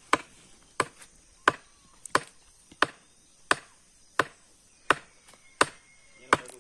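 A hand tool striking again and again at a steady pace, about one blow every two-thirds of a second, ten blows in a row: chopping or knocking at wood while a bonfire frame is built.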